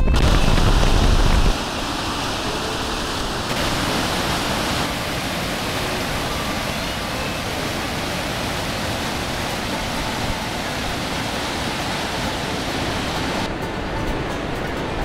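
River rapids rushing, a steady even roar of whitewater that starts about a second and a half in. Before it, heavy low wind buffeting on the microphone from a moving motorcycle.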